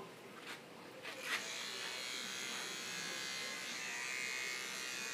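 Electric hair clippers switched on about a second in, then running steadily as they trim hair.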